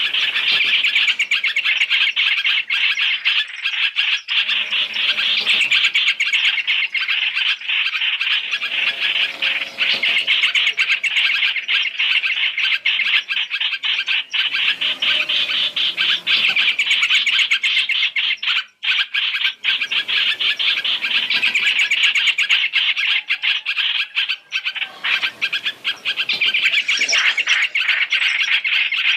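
Dense, unbroken chirping and calling of hoành hoạch (trao trảo) birds, a combined three-call lure recording used to attract the birds into traps.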